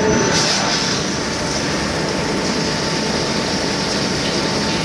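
Macpower Mono 300 CNC turning lathe running: a steady, even rushing noise with no clear rhythm.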